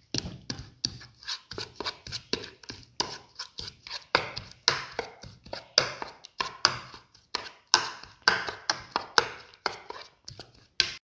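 A ceramic spoon scraping and knocking against a ceramic bowl while stirring a thick lentil and chickpea flour batter, in quick repeated strokes of about three a second.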